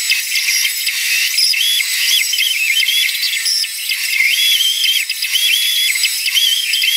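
Bandsaw cutting letters out of a wooden block: a high whine over a hiss that holds and then shifts in pitch as the blade works through the curves.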